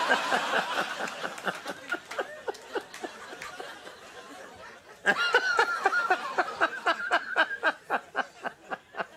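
A man laughing hard in quick, breathy pulses that trail off over the first few seconds, then a second fit of laughter that starts abruptly about five seconds in.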